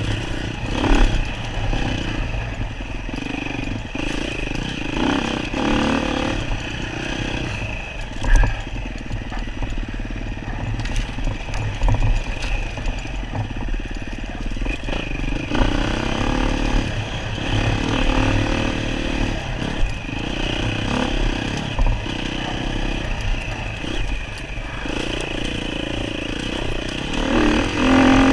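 Dirt bike engine running, the throttle opening and closing every few seconds, with scattered clatter and a sharp knock about eight seconds in.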